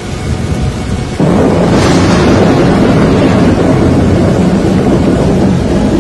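Loud, dense storm noise, a rumble of wind and rain, jumping sharply louder about a second in and staying loud.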